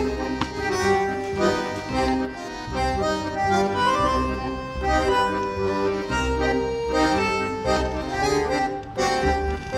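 Background music: a melody of held notes over a steady low pulse.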